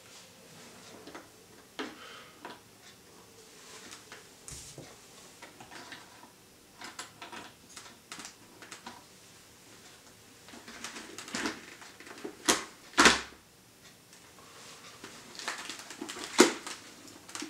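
Handling noise of hard plastic: a helmet camera-headset unit tapped, turned and rubbed against a motorcycle helmet's shell, giving scattered clicks and knocks. The loudest knocks come about 13 seconds in and again near the end.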